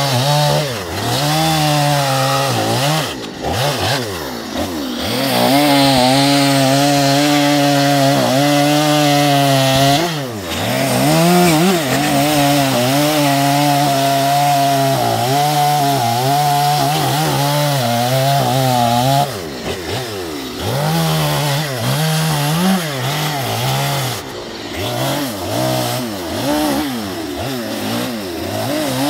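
Two-stroke chainsaw cutting into a western red cedar log. The engine is held at high revs through long steady cuts, with brief drops off the throttle a few times. In the last third it runs lower and unevenly, blipping between shorter cuts.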